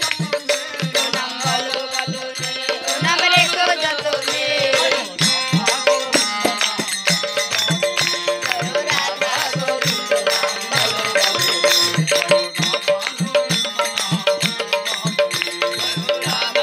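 Hindu devotional kirtan music: singing over a steady hand-drum beat of about three strokes a second.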